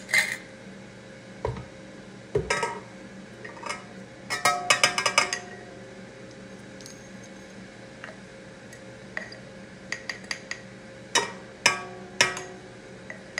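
Glass mason jar clinking and knocking against a stainless steel stand-mixer bowl as dry pancake mix is tipped and tapped out of it. There are scattered taps, a quick run of rattling clinks about four to five seconds in, and three louder knocks near the end.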